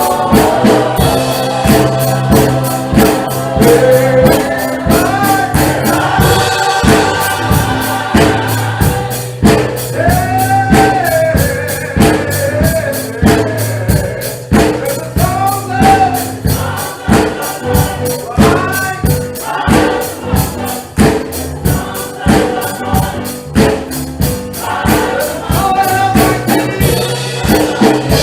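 Gospel music: voices singing a melody over a steady, evenly spaced percussive beat.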